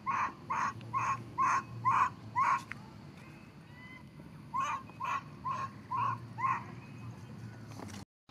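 An animal calling over and over, short calls about two a second: seven in a row, then after a pause of about two seconds five more.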